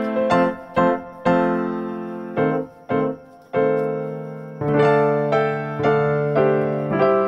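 Background music: a piano melody of struck notes and chords that ring and fade.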